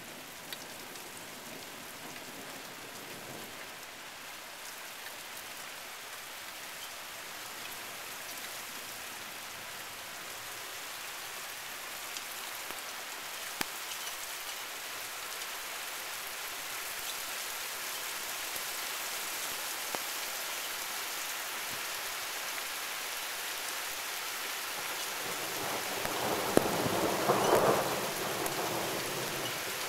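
Heavy rain falling steadily and slowly growing heavier, with a few single drips striking close by. Near the end a roll of thunder swells up and fades.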